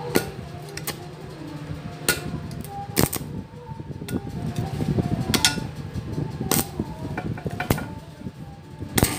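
Stick (arc) welding on a steel tube: sharp clicks about once a second as the electrode is struck against the metal, with spells of arc crackling in between.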